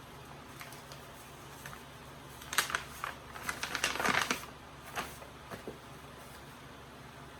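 Old photographs and papers being handled and shuffled: a cluster of quick paper rustles and light taps starting about two and a half seconds in and lasting around two seconds, then a few single taps.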